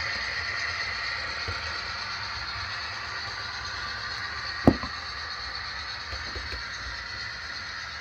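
Sound-equipped HO-scale FL9 model locomotive running slowly on its track, its sound decoder playing the diesel engine through a small speaker as a steady hissy rumble. A single sharp click about four and a half seconds in.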